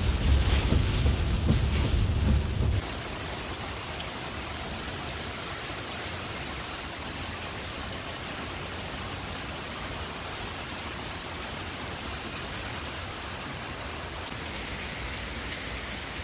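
Low rumble of a car driving through heavy rain for the first few seconds, cutting off abruptly. Then steady, even hiss of heavy tropical-storm rain falling.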